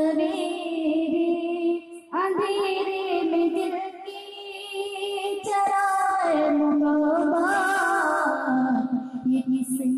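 A girl singing a naat, an Islamic devotional hymn, into a microphone in long, wavering held notes, with a short break about two seconds in.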